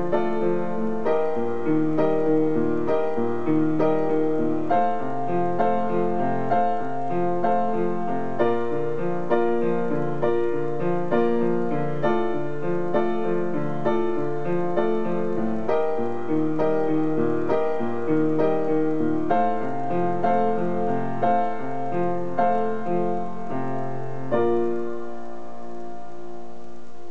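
Acoustic upright piano playing a solo arrangement of a pop song, a steady stream of melody and chords. Near the end a final chord is struck and held, ringing on as it fades slowly.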